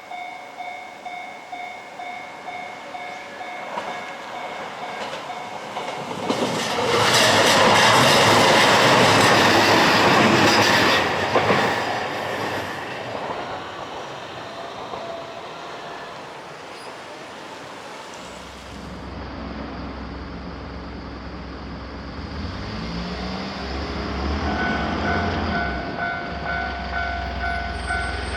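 Japanese railroad crossing warning bell ringing in quick repeated dings while a train passes over the crossing, loudest for about five seconds near the middle. Later the sound changes and another crossing bell, pitched differently, starts ringing near the end.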